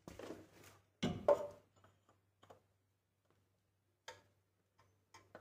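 A few scattered light clicks and knocks, the loudest about a second in, over a steady low hum.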